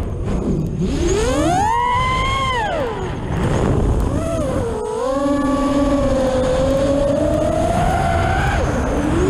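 Vortex 180 racing quadcopter's motors whining, heard from on board over the rush of wind. The pitch climbs steeply about half a second in, falls away by three seconds, then holds a steadier lower pitch before dropping again near the end, following the throttle.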